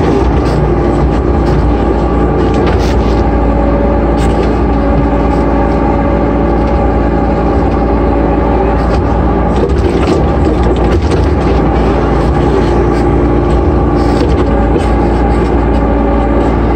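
Sunward 5-ton mini excavator's diesel engine and hydraulics running steadily at working revs as the arm and bucket are worked, heard from inside the cab, with a steady whine over the engine drone. A few short knocks come through along the way.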